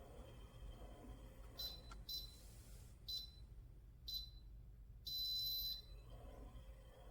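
Electronic beeper of a GUGTTR electric under-desk elliptical leg exerciser: four short high beeps, then one longer beep near the end, as its controls are worked.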